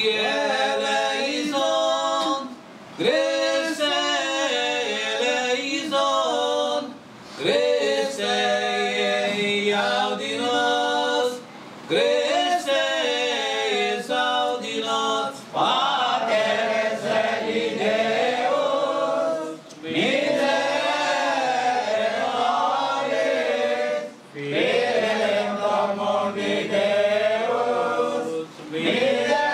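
A group of men and women singing a hymn together, in sung phrases of about four seconds, each followed by a brief pause for breath.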